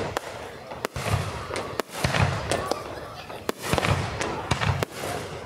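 Aerial firework shells bursting overhead in a fireworks display: an irregular run of sharp cracks and deep booms, several close together at times.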